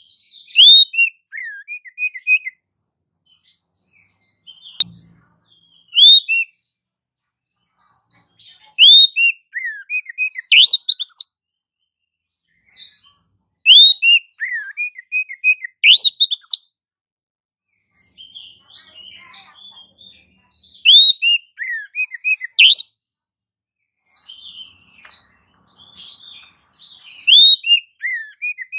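Small songbird calls from a bird-lure (pikat) recording: repeated phrases of quick high chirps and short falling whistles, each lasting a second or two and returning every few seconds, with fainter chatter between.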